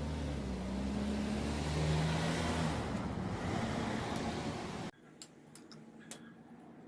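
A motor vehicle running, a steady noisy hum with a low drone that swells about two seconds in, then cuts off abruptly about five seconds in; a few faint clicks follow.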